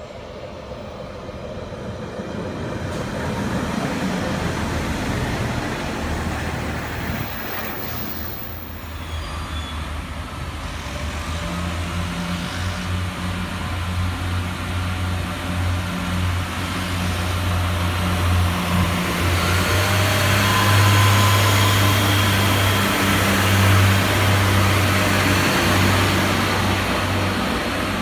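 Pacer diesel railbuses running on the line: the steady drone of their underfloor diesel engines, growing louder and strongest in the second half.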